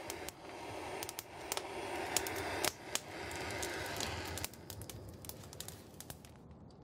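Kindling fire in a wood stove crackling, with many sharp pops and snaps over a rushing hiss of flame. The hiss drops away about four and a half seconds in, while the crackling goes on more softly.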